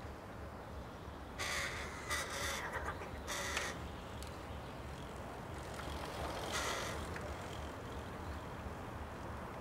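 Crows cawing: three harsh calls close together in the first few seconds, then one more a few seconds later.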